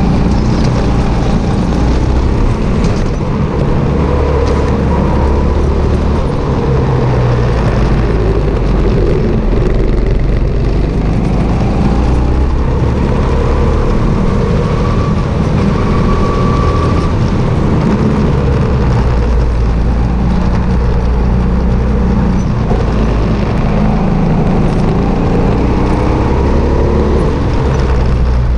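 Sodi RT8 rental kart's single-cylinder four-stroke petrol engine running at racing speed, its note rising and falling through the corners. Heard from a camera bolted to the kart itself, with a heavy low rumble from the chassis vibration.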